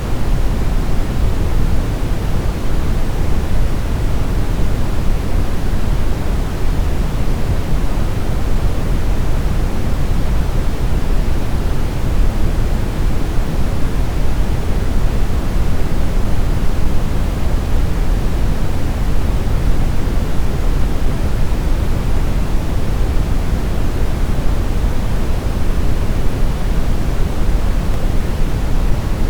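Steady brown noise: an even, deep rumbling hiss, with most of its weight in the low end.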